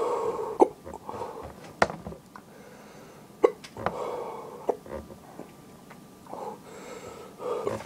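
A man hiccuping, brought on by eating a super-hot chili pepper: four sharp hiccups over about five seconds, with breathing between them.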